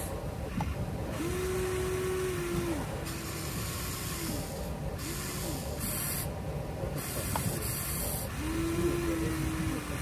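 Radio-controlled model excavators' small electric motors whirring as the booms and buckets move: a whine that rises as a motor spins up, holds, and falls away as it stops, several times, the longest runs early and near the end, over a steady hiss.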